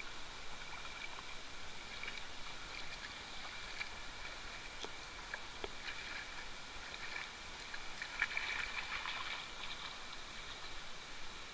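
Pond water sloshing and lapping as dogs wade through the shallows, with scattered small splashes and drips over a steady outdoor hiss. A cluster of splashes about eight seconds in is the loudest moment.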